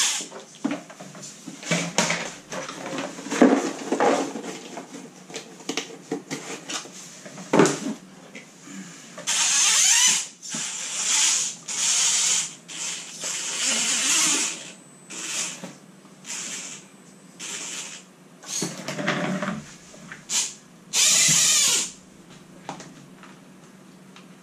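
Electric motor and gear drivetrain of a radio-controlled rock crawler whining in repeated short bursts as it is driven, the pitch rising and falling with the throttle. Short knocks and clatters come between the bursts as the crawler climbs over clutter on the floor.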